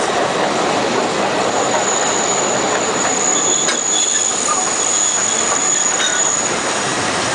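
Alishan Forest Railway steam train running, heard from a carriage behind the locomotive: a steady rumble of wheels on the rails, with a high, thin wheel squeal from about a second and a half in until near the end as the train rounds a curve.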